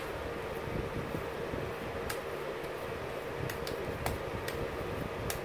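Steady mechanical hum of a running appliance, with a few faint soft slaps as raw ground pork is patted and shaped into a mini meatloaf by hand.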